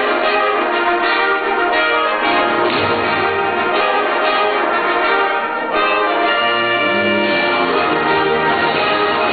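High school symphonic band playing sustained wind chords with ringing bell tones on top, the music easing briefly and then coming back in about six seconds in.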